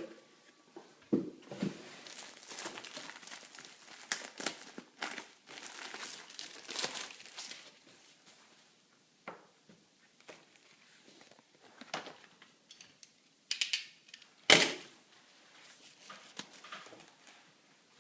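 Packaging crinkling and being torn open as it is handled, in dense irregular rustles through the first half that thin out later. A single sharper knock is the loudest sound, a little before the end.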